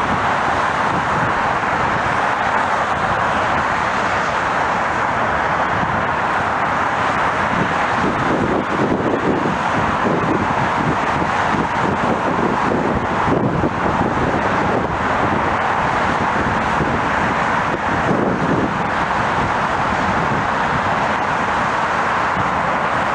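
Steady rushing roar of distant jet engines from airliners on the runway, mixed with road traffic noise, with no single event standing out.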